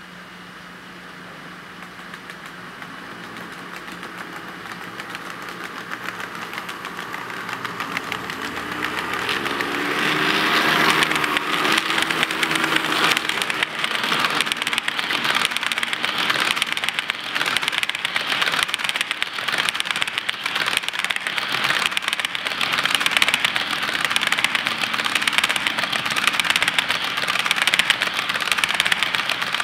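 HO-scale model train approaching and passing: the locomotives' electric motors hum louder as they near and go by about ten seconds in, then a long string of Walthers coal hopper cars rolls past with a steady, rapid clicking of wheels on the track.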